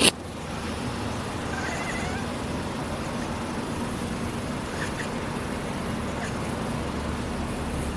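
Domestic cat chirping at birds: a short run of faint wavering chirps about two seconds in, with a couple of brief chirps later, over steady background noise. A sharp click sounds at the very start.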